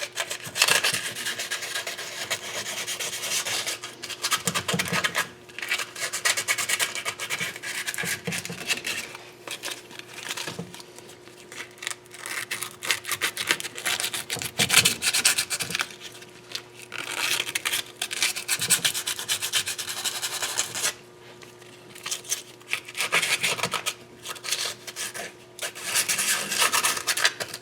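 80-grit sandpaper rubbed by hand over a metal exhaust gasket surface in quick back-and-forth strokes, cleaning it. It comes in about five bouts of a few seconds each, with short pauses between them.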